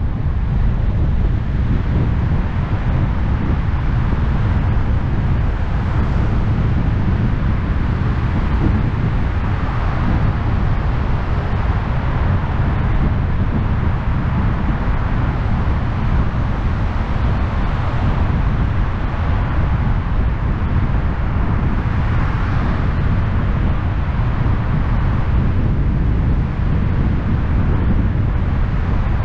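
Steady road noise of a car driving through a road tunnel: a deep, constant rumble under a rushing hiss that swells a little now and then.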